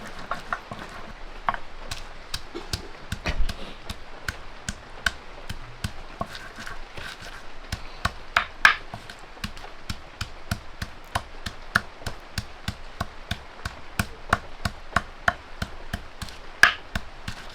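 Sharp, even knocks on wood, about three a second without a break, the strokes of chopping on a wooden surface, with one heavier knock a few seconds in.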